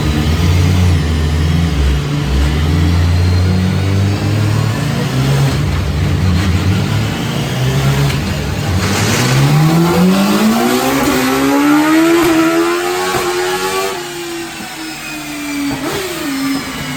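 BMW S1000RR inline-four motorcycle engine in a race buggy on the dyno, running low and uneven at first, then revving up in one long rising pull from about nine seconds in. The revs peak, fall away from about fourteen seconds, and come back in a short blip near the end.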